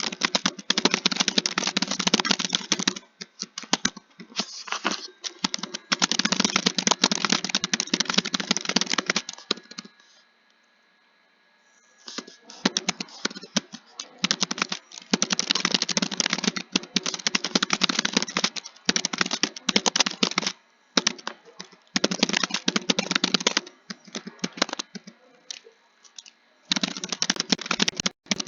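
Computer keyboard typing in quick runs of keystrokes, with short pauses and a stop of about two seconds near the middle.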